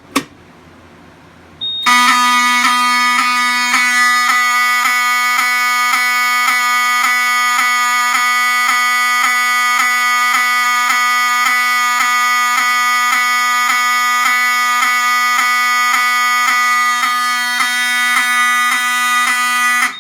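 Two sharp clicks as the pull station is pulled, then about two seconds in a Pyrotronics HSD-24 (Wheelock 7002T) fire alarm horn starts sounding, loud and continuous rather than in a pulsing pattern, because the panel is set on continuous.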